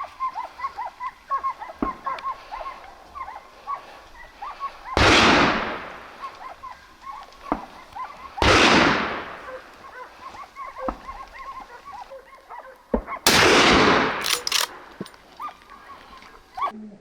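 Three loud hunting-rifle shots, each ringing on with a long echo, about three and a half and then five seconds apart, over faint chirping bird calls.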